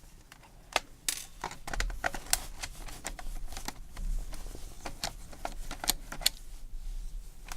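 Screwdriver unscrewing the screws from a plastic HP keyboard case: irregular small clicks, ticks and scrapes of metal on plastic, with a low handling rumble underneath.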